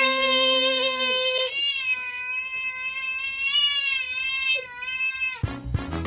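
A cat yowls one long, drawn-out note that wavers slightly in pitch for about five seconds and breaks off near the end, where a burst of low knocking noise comes in.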